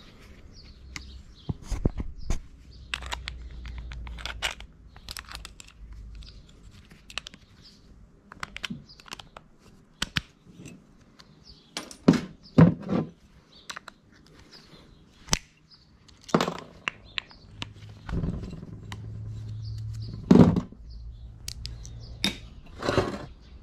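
Irregular clicks, knocks and clatter of metal sewing-machine parts being handled and worked loose during dismantling, with a few louder knocks past the middle and near the end.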